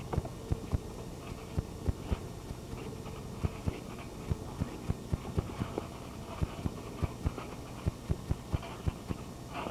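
Irregular low thumps, a few a second, of feet and bodies landing and bouncing on a backyard trampoline mat.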